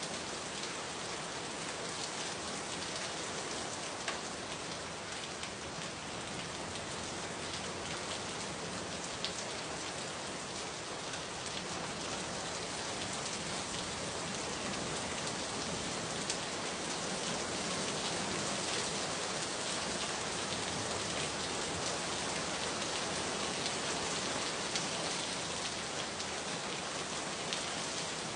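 Steady rain falling, an even hiss with a few louder single drops tapping now and then.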